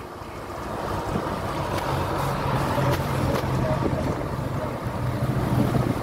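Road noise of a moving vehicle: a steady rumble of tyres and engine that swells over the first second or so, with a low engine hum joining about two seconds in.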